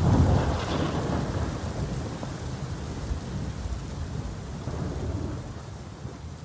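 Heavy rain pouring steadily, with a roll of thunder that is loudest right at the start and rumbles away over the next few seconds. The whole storm sound slowly fades down.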